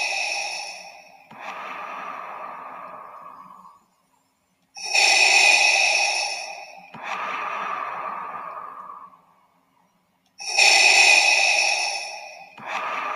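Darth Vader's respirator breathing sound effect: a hissing mechanical inhale followed by a lower exhale, in slow, even cycles about every five and a half seconds.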